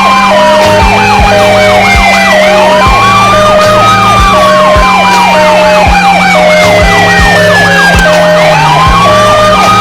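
Several emergency sirens sounding at once: a slow wail that falls and rises over about two and a half seconds, a fast yelp repeating several times a second, and a steady on-off beeping. Underneath run a low hum and a low thump about once a second.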